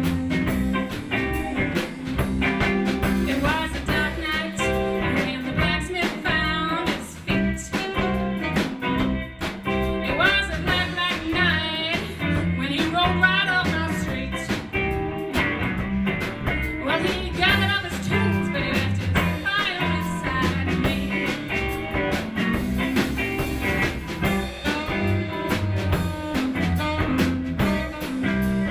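Live blues band playing, with guitar prominent and singing at times.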